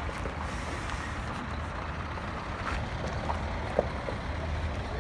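Steady low vehicle rumble with an even background hiss, broken by a few brief faint chirps, the loudest a short tone a little before the four-second mark.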